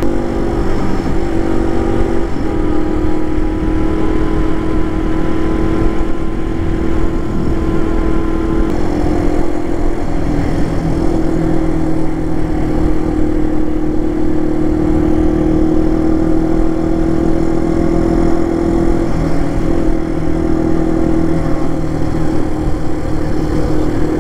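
Single-cylinder dual-sport motorcycle engine running under way at a steady cruising speed. Its pitch steps down and back up a few times as the throttle or gear changes.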